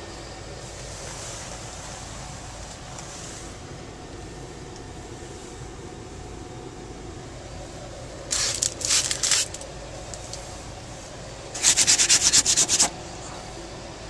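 Rheem gas furnace running with a steady hum. A few scraping rubs close to the microphone come about eight seconds in, then a louder, rapid run of scrapes near the end.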